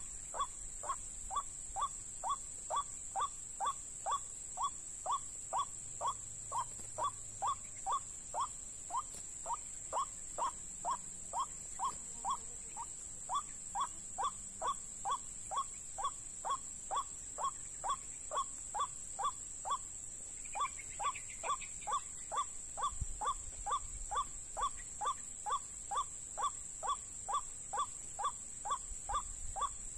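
White-breasted waterhen (ruak-ruak) calls repeated monotonously, a short downward-slurred note about twice a second. A steady high-pitched drone runs underneath.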